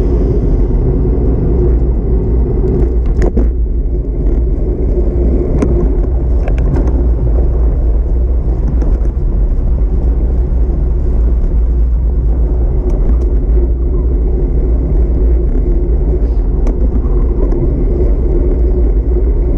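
Steady rumble of wind on the microphone and bicycle tyres running on asphalt while riding along a street, with a few short clicks about 3, 6 and 7 seconds in.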